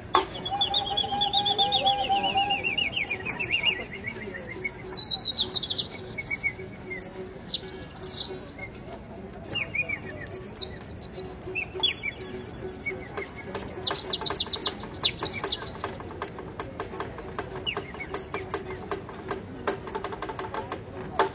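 High bird-like chirps and trills, several overlapping: a falling series of quick chirps at the start, scattered sweeping calls, and a dense run of fast repeated chirps about two-thirds of the way through.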